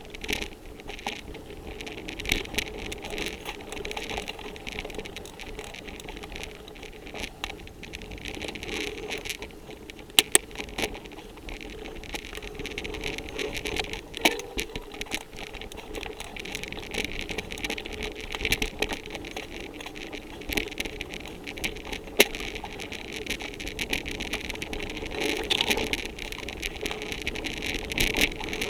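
Continuous rumble and rattle of a fast ride down a leaf-covered forest trail, picked up by a mounted action camera, with many small clicks and a few sharp knocks from bumps.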